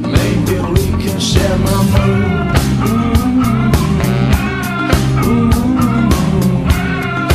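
Rock music with a steady drum beat and guitar, played as a soundtrack.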